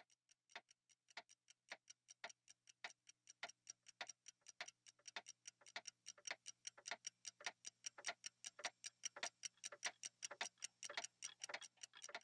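Faint ticking clicks, like a clock, that speed up and grow louder, from about two a second to about five a second, with a faint low hum joining a few seconds in.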